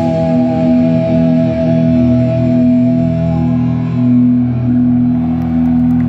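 Live progressive metal band holding long, ringing chords on electric guitars and keyboard over low sustained bass notes, with no drums.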